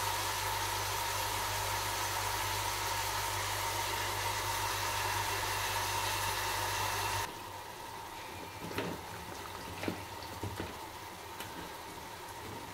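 Steady mechanical hum with a hiss that cuts out suddenly about seven seconds in. After it, a few light taps and knocks as hands add ingredients to an aluminium pressure cooker on a gas stove.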